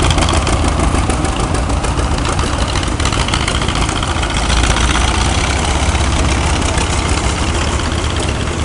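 Farm tractor engines running at idle: a steady, loud low rumble with fast, even firing pulses.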